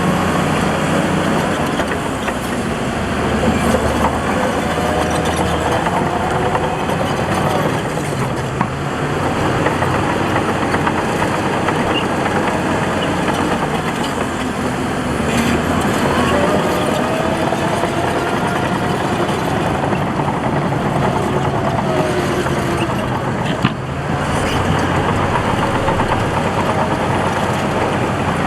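Heavy diesel earthmoving machinery running steadily under load, with a faint wavering whine over the engine noise.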